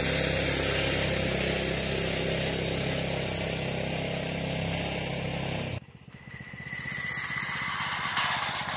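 Predator 212 single-cylinder engine of a homemade tractor running steadily under load, towing a trailer of three heavy round hay bales and fading as it pulls away. About six seconds in the sound cuts off suddenly to something much quieter, with a sharp click near the end.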